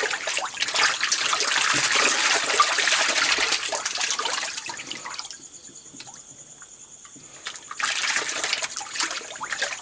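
Walking catfish thrashing and splashing at the water surface as they tear at a dead baby bird. The splashing eases about five seconds in and starts up again near the end.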